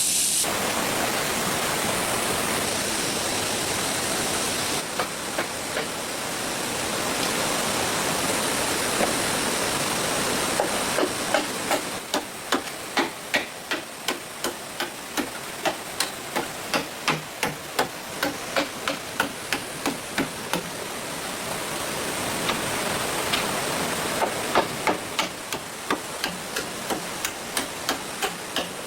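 A steady background hiss, then from about a third of the way in a run of sharp knocks, evenly spaced at about two a second.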